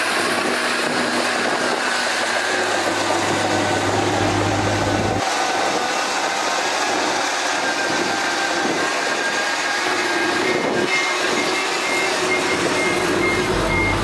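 A 12-wheel dump truck's engine running steadily as its tipper bed is hoisted, with a load of dirt sliding and tumbling out of the back.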